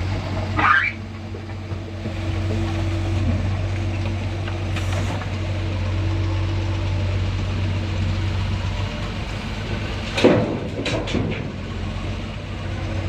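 Doosan DX140 excavator's diesel engine running steadily, with a higher steady hydraulic tone above it. A brief scrape comes just under a second in, and a quick cluster of clanks a little after ten seconds, as the bucket works.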